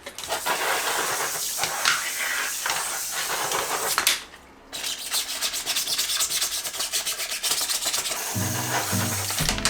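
Brush scrubbing a surface in quick back-and-forth strokes, with a short pause about four seconds in. Background music comes in near the end.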